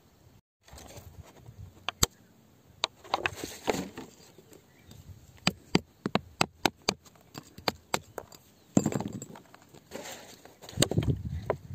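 A thin rod tapping and scraping at loose grit in a rock hollow: irregular sharp clicks with a few short stretches of scratchy scraping.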